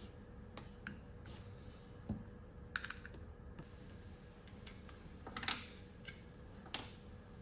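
Scattered small clicks and taps of a Pentax Spotmatic 35mm film camera being handled while its battery compartment is opened, with a slightly longer scrape a little past halfway.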